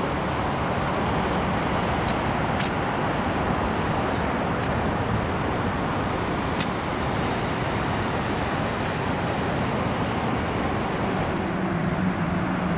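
Steady roar of road traffic from an elevated expressway, with a few faint ticks and a low hum coming in near the end.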